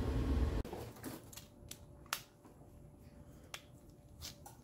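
A few faint, sharp clicks of small machined metal footpeg mount pieces being handled in gloved hands, the clearest about two seconds in and a couple more near the end. A low rumble cuts off suddenly just after the start.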